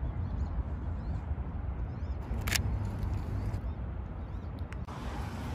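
Camera shutter clicking once, about halfway through, over a steady low rumble of wind on the microphone. A few faint short high chirps come in the first two seconds.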